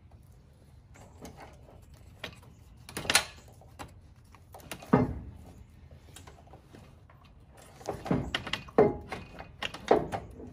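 Heavy electric winch being worked down into a steel winch mount by hand, its metal housing knocking and scraping against the plate in a few separate clunks, with a cluster of knocks near the end.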